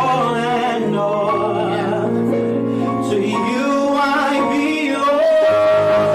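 Gospel choir of men's and women's voices singing with instrumental backing; about five seconds in the voices settle on a long held note.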